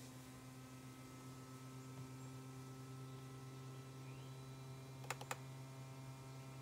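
Two quick clicks of a laptop touchpad button about five seconds in, over a steady low electrical hum.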